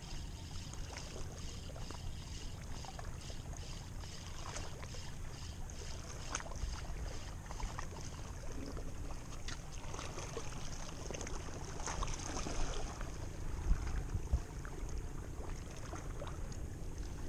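Wind on the microphone and water lapping, with a faint rhythmic ticking over the first several seconds from a fishing reel being cranked to retrieve a light lure.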